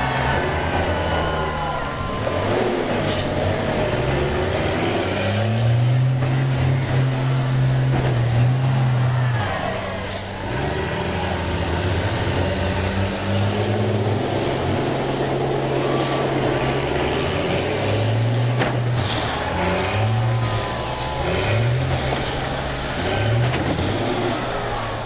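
Several school bus engines revving up and down, their pitch rising and falling again and again, with several sharp bangs and hisses as the buses collide in a demolition derby.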